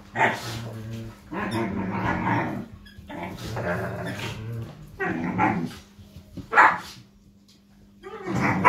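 Irish Wolfhound puppies, about five and a half weeks old, growling and giving high yappy barks as they play-fight, in repeated bursts with a short lull about seven seconds in.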